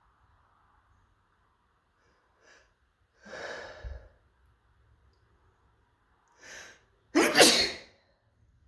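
A person sneezes once, loudly and suddenly, near the end. It is preceded by a drawn breath just before it and, a few seconds earlier, a longer breathy sigh-like sound.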